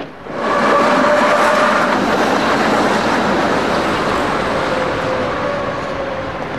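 City street traffic noise: a steady rush of passing vehicles, rising just after the start and easing slightly toward the end, with a faint steady hum.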